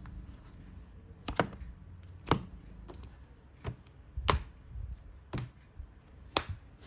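Keys of a mechanical keyboard being pressed one at a time, giving about six separate sharp clacks at uneven intervals.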